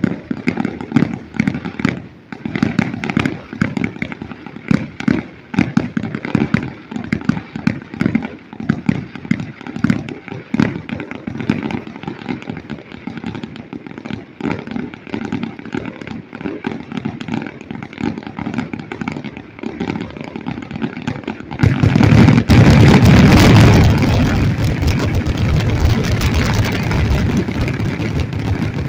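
Fireworks grand finale: a dense, rapid string of bangs and crackles. About three quarters of the way through, a sudden much louder continuous roar takes over and slowly fades.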